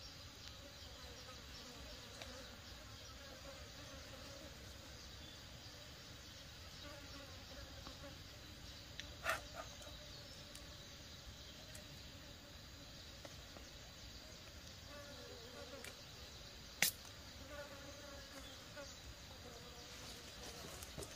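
Faint steady buzzing of forest insects, with two short sharp clicks, one about nine seconds in and a louder one near seventeen seconds.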